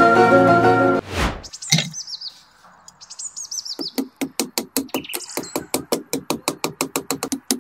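Music ends about a second in with a whoosh. Short falling bird chirps follow. Then, about four seconds in, a small hammer starts tapping on the top of a thin metal stake, steadily, about four or five taps a second, driving it into the soil.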